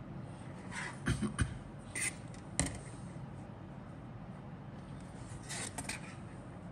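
Grey plastic model-kit sprue being handled and turned over: light clicks and scrapes of the plastic frame against the fingers and cutting mat. They come in a run of sharp clicks between about one and three seconds in, and a second cluster near the end.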